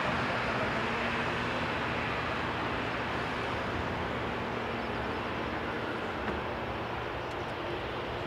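Twin Rolls-Royce Trent XWB engines of an Airbus A350-900 at takeoff thrust, a steady jet roar heard from behind as the airliner lifts off and climbs away. The roar fades gradually, losing some of its hiss after a few seconds.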